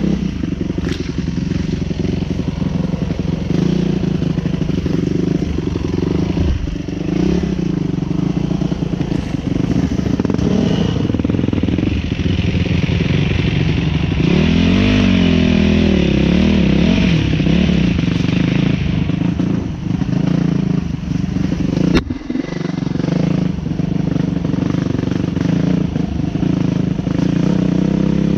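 Enduro motorcycle engine running under way on a rough dirt trail. The revs rise and fall about halfway through. There is one sharp knock about three quarters of the way in.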